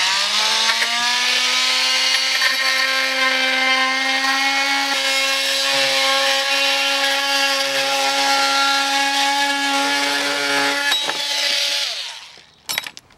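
Cordless multi-tool cutting a section out of a car's plastic front panel: a steady whine that rises in pitch as it spins up at the start and winds down near the end.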